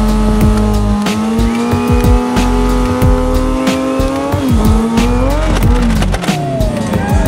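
Suzuki GSX-R750 race bike doing a burnout: the engine is held at high, steady revs while the rear tyre spins and squeals. About four and a half seconds in the revs start to waver, then drop near the end.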